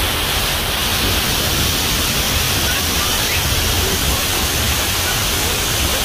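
Artificial waterfall pouring down a rock face: a loud, steady rush of water with a deep rumble underneath.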